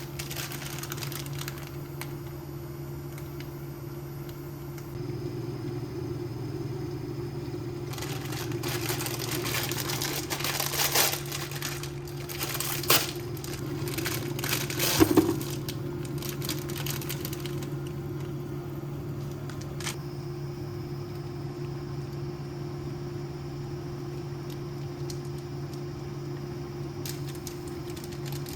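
Packaging crinkling and rustling as it is handled, with a few sharper knocks in the middle, over a steady low hum.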